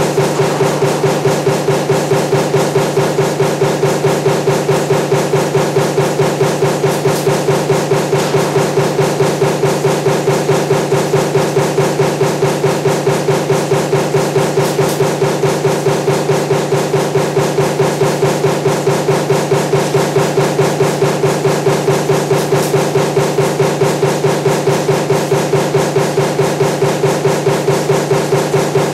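Power punch press running a stamping die for table fan motor parts, cycling continuously in a fast, even rhythm of strokes over a steady machine hum.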